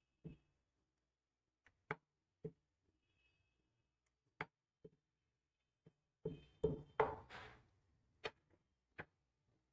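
Rolling pin and board while dough is rolled out into thin discs: scattered light knocks and taps, with a quick run of several knocks and a brief rustle about two-thirds of the way through.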